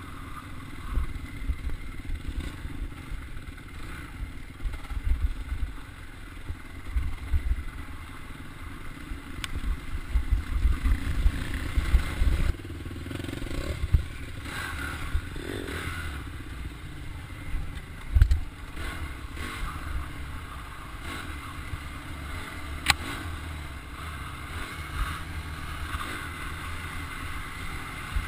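A dirt bike's engine running as it rides a rough dirt trail, heard from a camera on the bike, with an uneven low rumble and a few sharp knocks.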